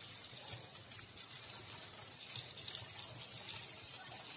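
Hot oil sizzling and crackling steadily as small balls of sweet batter deep-fry in a steel pot.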